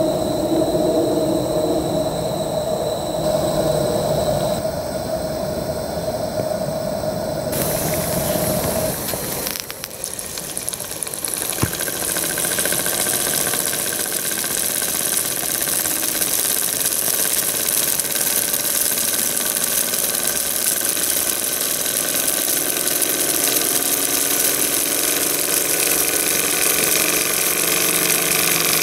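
Marten & Howes twin-cylinder model steam engine running on steam, with a steady high hiss of steam. It follows a steady hum with a held tone that breaks off about ten seconds in, then a single click.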